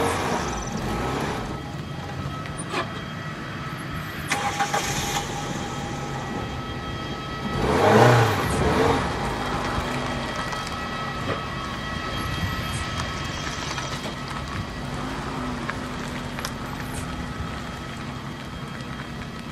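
Airport ground vehicle engines running during an aircraft tow, a steady drone with a thin steady whine over it. It swells louder at the start, again about four seconds in, and most of all about eight seconds in.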